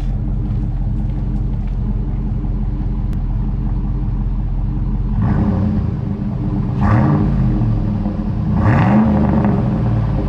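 GMC Sierra's 5.3-litre V8 idling through a freshly installed Carven TR muffler with 3-inch piping and a turn-down tip, then revved in quick throttle blips in the second half, the pitch rising and falling with each one, most clearly twice.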